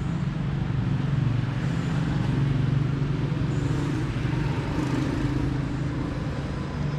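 A steady, low, engine-like hum over an even background noise.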